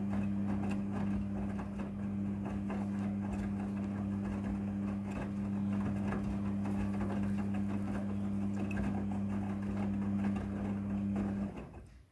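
Midea front-loading washing machine running with a steady hum and a busy rattle, cutting off suddenly near the end.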